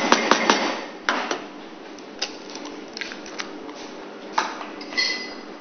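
A metal spoon clinking against a stainless-steel mixing bowl as egg is stirred into mashed tempe: a quick run of clicks in the first half second, then scattered single clinks, some with a short metallic ring.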